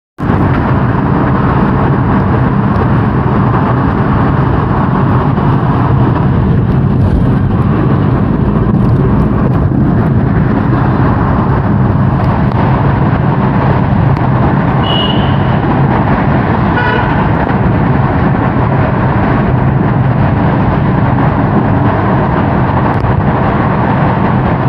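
Steady road and engine noise of a car driving through a road tunnel, heard from inside the car, with a heavy low rumble. A brief high beep sounds about fifteen seconds in.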